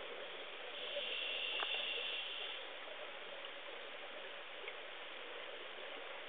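Steady background hiss of room tone, with a brighter, higher hiss for about the first two seconds and a single faint click about a second and a half in.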